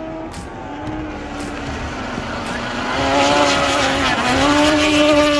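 Outboard engine of a small vintage racing boat running at high revs, growing louder as the boat passes close. Its pitch dips briefly about four seconds in, then climbs back up.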